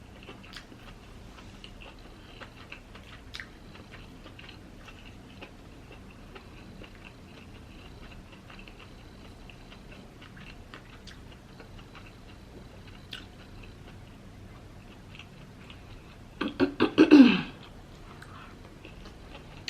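Close-miked chewing of a mouthful of food, with many small wet mouth clicks. A short voiced sound, falling in pitch, comes about three quarters of the way through.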